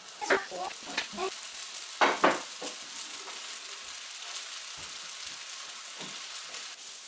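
Freshly washed perilla seeds sizzling in a hot frying pan as they are roasted to drive off their water. A few louder sizzles and knocks come in the first two seconds or so, then a steady hiss.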